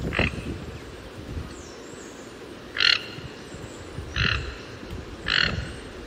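A toucan calling: four short, raspy calls, the first right at the start and the rest one to three seconds apart.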